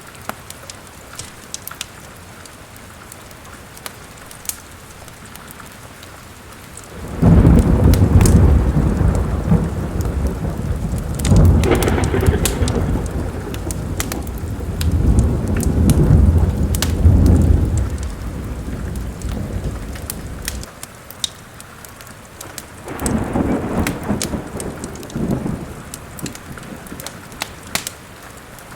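Steady rain with scattered sharp crackles of a fireplace fire. About seven seconds in, a long roll of thunder breaks in suddenly, swells several times and dies away; a shorter, weaker rumble follows near the end.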